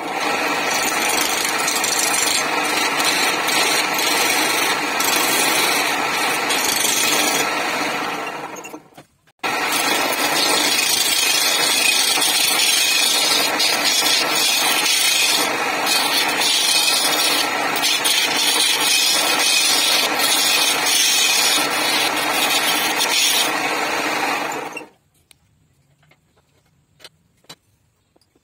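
Wood lathe spinning a wooden blank while a round-nose chisel ground from an old planer blade cuts into it: a loud, steady scraping hiss over the machine's hum. The sound breaks off for a moment about nine seconds in and stops about 25 seconds in, leaving only a few faint clicks.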